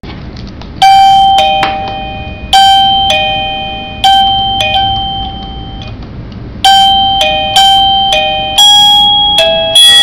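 Plug-in wireless doorbell receiver playing its electronic chime tune: a sequence of bell-like ding-dong tones alternating between two main pitches, each ringing and fading. The tune starts about a second in and starts over about six and a half seconds in.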